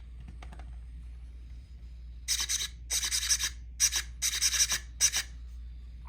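RC car servos whirring in about five short bursts as they are swung back and forth from the radio.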